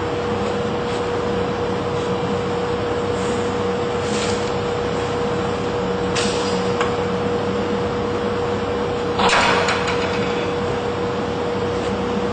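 Roll splitter (core slabber) machine running with a steady hum, broken by a few short hissing bursts, the loudest about nine seconds in, as a roll core is loaded and split.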